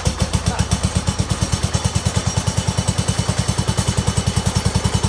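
Wheel Horse C161 garden tractor's Kohler engine running steadily with an even, rapid beat of about a dozen pulses a second, having just caught on choke while fed from a gravity test tank. It runs smoothly after sitting unused for years.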